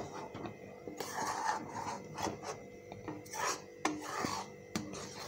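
Metal spoon scraping around the bottom and sides of a metal pan while stirring thick milk as it reduces, in a run of short rasping strokes with light clicks of spoon on metal.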